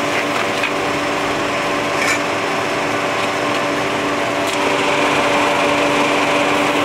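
Vehicle lift's motor running with a steady hum as the lift arms rise toward the van's jack-up points.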